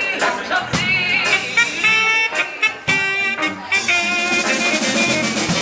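Live band with horns playing over a drum kit: held and shifting horn notes over a steady drum beat.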